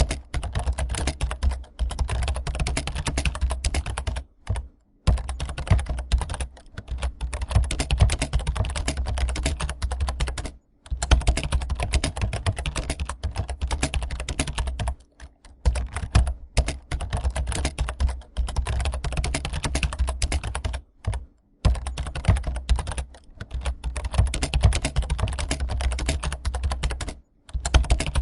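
Rapid, continuous typing on computer keyboards, the dense clatter of an exam-hall typing test, broken by a few brief pauses.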